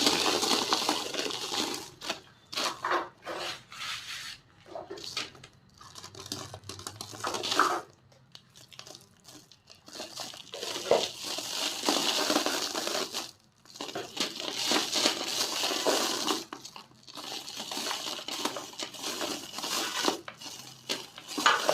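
Small dry white-cement bowls being crumbled and broken, a crisp crackling crunch that comes in bursts, with a quieter pause about eight seconds in.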